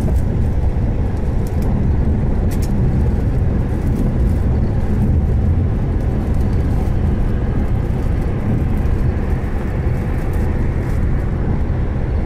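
Steady low rumble of a car on the move: engine and road noise, unchanging throughout.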